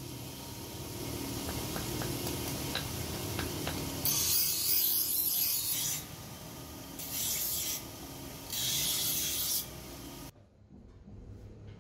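Bench grinder motor running, with a small steel knife blade pressed against the grinding wheel three times. Each pass gives a harsh grinding hiss, the first about two seconds long and the next two about a second each, with the motor's hum between. The sound cuts off suddenly near the end.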